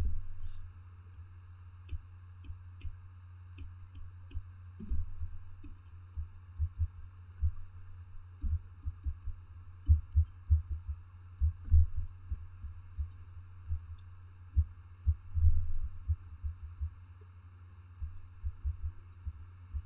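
Irregular soft low thumps with faint clicks from a stylus tapping and writing on a drawing tablet, carried into the microphone, over a steady low electrical hum.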